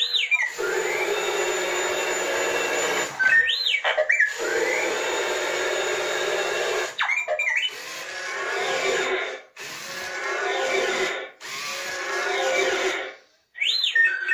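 JJRC R1 Defender toy robot's small electric gear motors whirring steadily as it moves, in runs of a few seconds with short breaks. Its loudspeaker plays short electronic sweeps that rise and fall in pitch at the start, about three and a half seconds in, about seven seconds in, and near the end.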